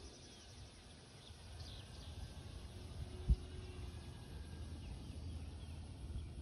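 Faint outdoor ambience: a low rumble with a few faint high chirps, and a single short thump about three seconds in.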